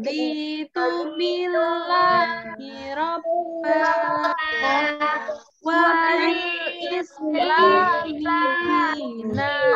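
Children and a woman singing an Arabic prayer together in a melodic chant, with long held notes and short pauses between phrases, heard through a video-call recording.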